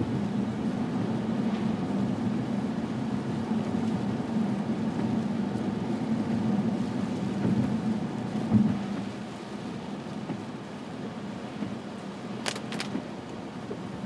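Car driving, with a steady hum of engine and tyres on the road. A thump comes a little past the middle, after which it is quieter, and a few brief high-pitched squeaks come near the end.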